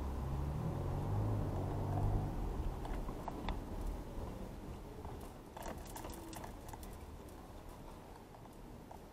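Low rumble of a car driving, heard from inside the cabin, dying away after about four seconds, with a scatter of faint clicks in the middle.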